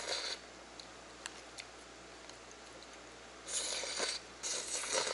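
A person slurping soft noodles and broth from a plastic lid held to the mouth: a short slurp at the start, then two longer slurps about three and a half and four and a half seconds in, with a few faint clicks between.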